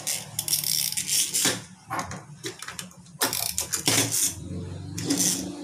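Small plastic toy shark's internal mechanism ratcheting as it is worked by hand, a string of short irregular clicks with brief pauses.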